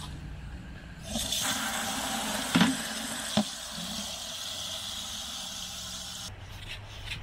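Garden hose spray nozzle filling a plastic bucket with water, a steady hissing spray that starts about a second in and cuts off near the end. Two knocks sound partway through.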